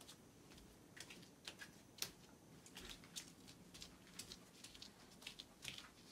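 Faint, irregular light clicks and taps: a toddler handling a small bowl of cherry tomatoes and stepping barefoot on a wooden floor.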